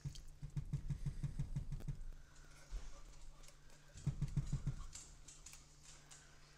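Quick runs of dull taps as an opened can of condensed cream of chicken soup is shaken and knocked against a silicone spatula over a pot to work the thick soup out: about eight taps in the first two seconds, then a shorter run of about five about four seconds in.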